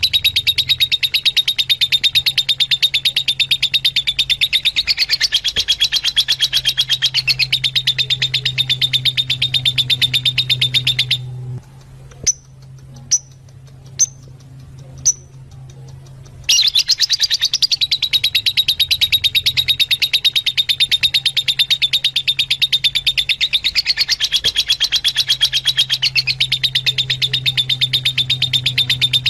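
Fischer's lovebirds chattering: a dense, rapid, high-pitched chatter that breaks off about eleven seconds in for some five seconds, leaving only a few single chirps, then resumes. A steady low hum runs underneath.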